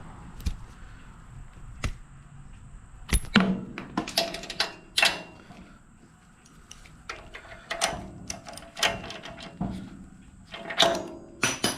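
Metal hand tools clicking, clinking and scraping in irregular bursts as a new spark plug is fitted and tightened into a Briggs & Stratton small engine.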